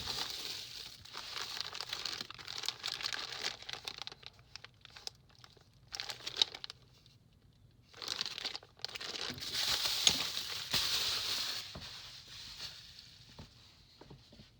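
Plastic packaging crinkling and rustling as it is handled, in several bursts with short pauses between, with a few small clicks.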